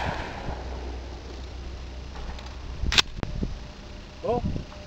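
A single shotgun shot at a skeet target about three seconds in, a sharp crack with a brief echo off the surroundings. Near the end a man's voice gives a short shouted call.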